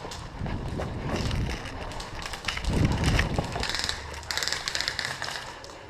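Wind rumbling on the microphone, with rustling and scattered clicks from handling or movement.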